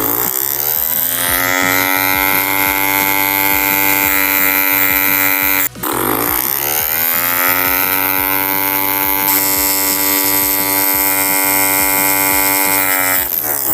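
Small electric motor of a homemade drill whining as it spins up to speed and runs steadily. It cuts out suddenly about six seconds in, then spins up again and runs until near the end.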